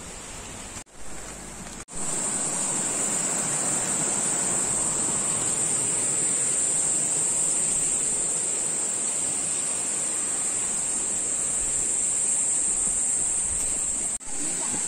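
Rushing river water, a steady loud rush that comes in after two brief cuts in the first two seconds, with a thin steady high hiss over it.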